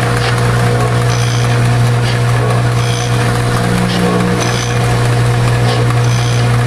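Pan agglomerator mixer running: a steady, loud electric-drive hum under the turning pan and tumbling granules, with a brief higher hiss recurring about once a second.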